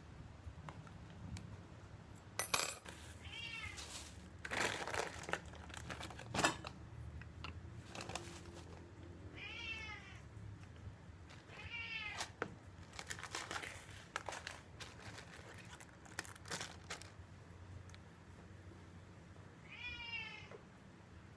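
A cat meowing, about four short calls spread through, while grocery bags rustle and things are knocked and set down on a hard floor.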